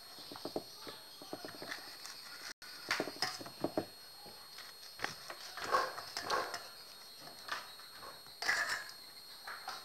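Kitchen knife cutting kernels off a fresh corn cob over a stainless steel bowl: spells of crisp cutting and scraping with light clicks, about four of them a couple of seconds apart.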